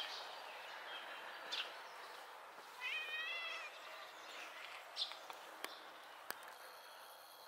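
Ginger cat giving one short, wavering meow about three seconds in. A few faint high chirps and two sharp clicks come later.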